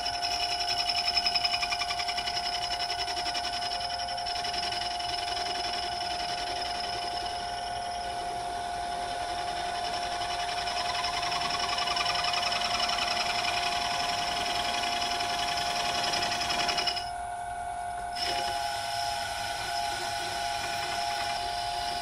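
Vintage metal lathe taking a facing cut on a metal disc with a tool bit: a steady high-pitched ringing whine from the cut. The whine drops out briefly about 17 seconds in, then resumes.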